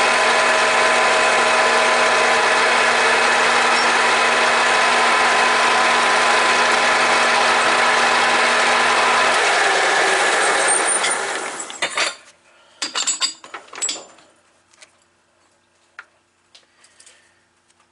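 Grizzly G4003G gear-head lathe running with a steady gear whine. It is switched off about nine seconds in and spins down to a stop, followed by a few sharp metallic clicks and knocks as the machine is handled.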